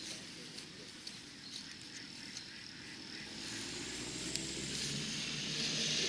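A low engine-like hum that grows louder over the second half, over a steady high outdoor hiss, with a few faint clicks.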